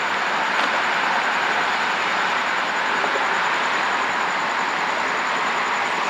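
Steady rushing wind and road noise of a car driving along.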